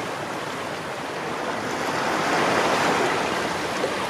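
Water rushing and splashing along the hull of a sailing yacht under sail, swelling a little about halfway through.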